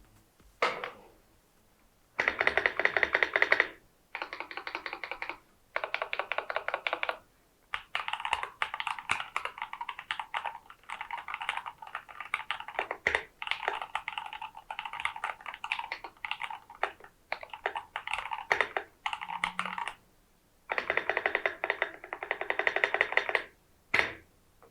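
Mechanical keyboard fitted with Keychron Camo Light Green switches being typed on: fast runs of key clacks, some very dense rolls of rapid key presses, broken by short pauses.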